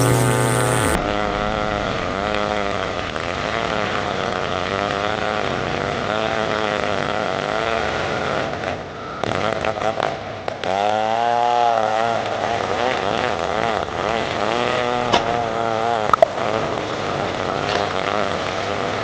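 Stihl 070 chainsaw running under load while cutting hard wood, its engine pitch wavering up and down. About halfway through the engine falters and drops briefly, then revs back up.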